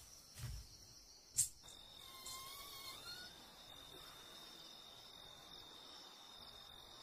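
Crickets chirping in one steady high trill against the quiet of a night. A soft thump comes about half a second in, and a sharp click, the loudest sound, a second later, before the trill sets in.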